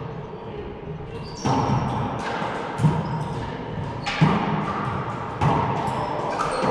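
A racquetball rally: four sharp, echoing hits of the ball off racquets and the court walls, spaced a little over a second apart.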